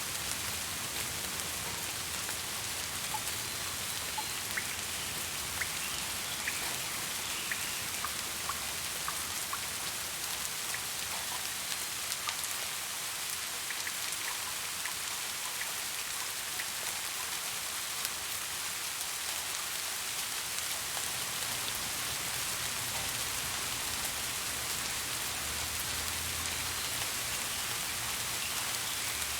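Steady rain falling, a constant hiss with scattered individual drop hits.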